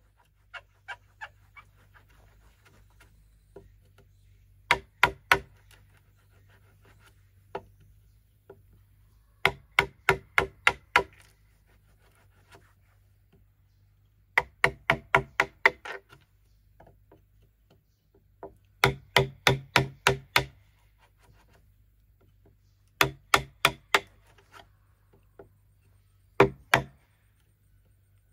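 A hand tool striking bamboo in bursts of several quick knocks, about four to five a second, with a pause of a few seconds between bursts. Each knock has a short ring.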